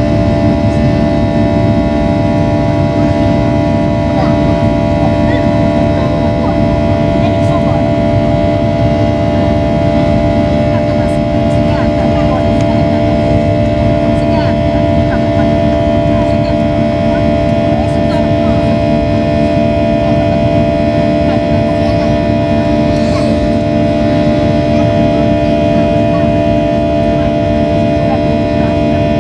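Airliner's engines heard from inside the passenger cabin during the climb after takeoff: a loud, steady drone with several constant whining tones over a low rumble.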